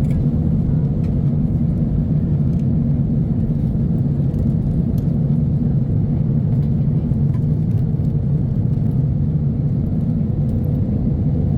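Airliner cabin noise heard from inside the passenger cabin: a steady low rumble of engines and airflow.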